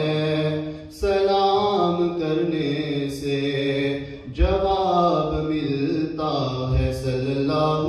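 A man singing an Urdu naat solo and unaccompanied, holding long, gliding melodic notes. He pauses for breath about a second in and again just past the middle.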